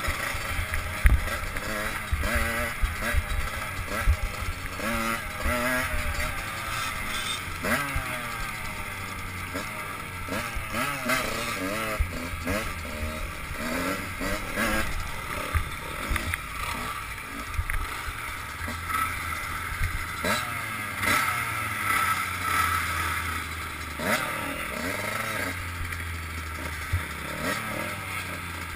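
Enduro dirt bike engine heard close up from the rider's helmet, revving up and down over and over as it is ridden over rough ground. Sharp knocks and rattles from the bike hitting bumps, most of them in the first few seconds.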